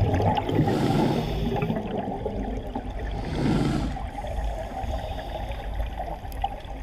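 Underwater noise picked up by a diver's camera: a steady low rumble, with two swells of bubbles from the diver's exhaled breath about three seconds apart.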